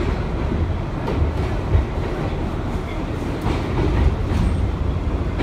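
Bombardier R62A subway car running, heard from inside the car: a steady low rumble with a few sharp clicks of the wheels over the rails.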